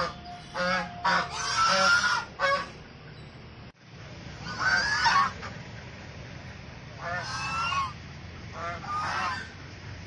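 White domestic geese honking in bouts of repeated calls: a quick run of honks over the first two and a half seconds, a brief dropout a little before four seconds in, then three more bouts of honking.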